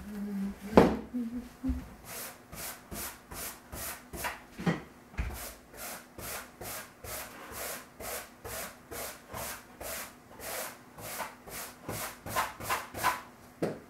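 Rhythmic scrubbing strokes from household cleaning, about two a second, beginning about two seconds in, after a sharp knock near the start. A faint steady hum runs underneath.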